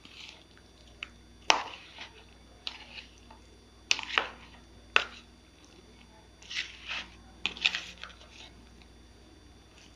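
Chicken marinade being mixed in a ceramic bowl: soft wet squishing and rustling of spiced chicken pieces and onion, broken by several sharp clicks against the bowl.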